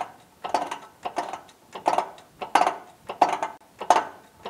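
A shop press is worked in steady strokes, giving evenly spaced metallic clicks, about three every two seconds, as it drives a needle bearing into an outboard lower unit housing.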